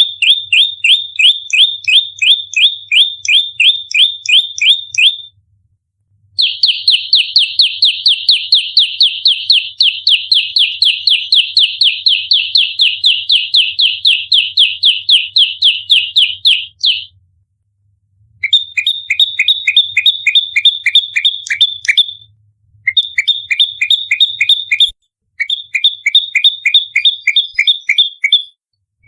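Prenjak lumut (a prinia) giving its rapid fighting call: fast, evenly repeated chirping notes, about four a second, in long bouts broken by short pauses. The densest and longest bout comes after a pause about five seconds in.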